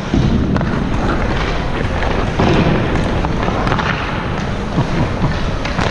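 Ice skate blades scraping and carving on the rink with wind rushing over a body-worn camera's microphone, and a few sharp knocks of a hockey stick and puck as a shot is taken.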